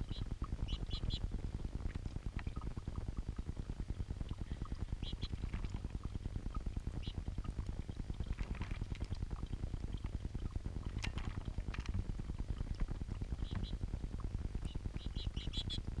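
Small rock fountain bubbling and gurgling steadily as water wells up through its stone, with short high chirps from lesser goldfinches in a few quick clusters, near the start, about five seconds in, and again near the end, and a few brief splashes as the birds bathe.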